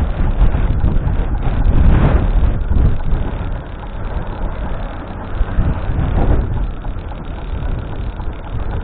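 Wind buffeting the microphone during a bicycle ride, mixed with road traffic noise. The rumble is loudest in the first few seconds, then eases off.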